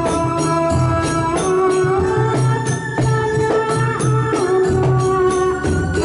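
Javanese Ndolalak folk music played live: a woman sings long, bending notes through a microphone over barrel hand drums beating a steady pattern, with jingling percussion on top.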